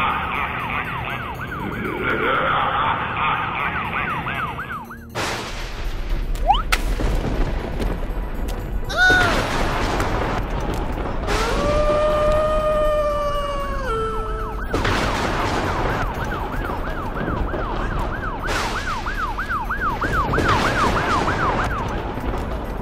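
Cartoon ambulance siren effect, a fast warbling wail, heard early on and again in the latter half, over spooky background music. In between come several sudden whooshes and a long held tone that drops in pitch as it ends.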